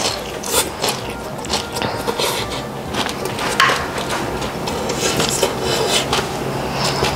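Spoon or cutlery clinking and scraping against a dish as food is eaten, over light background music.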